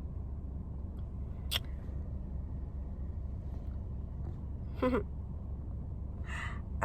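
A steady low hum, with a sharp click about a second and a half in and a short squeaky sound about five seconds in.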